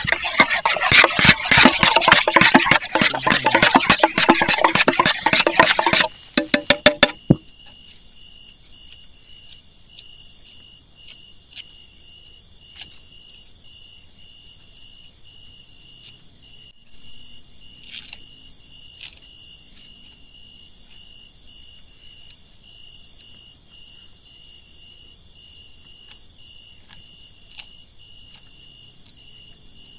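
Loud, dense crackling sizzle of food frying in hot oil, ending about six to seven seconds in with a few last pops. After that, a quiet, steady chorus of crickets and other night insects, one of them chirping in an even pulse, with a few faint clicks.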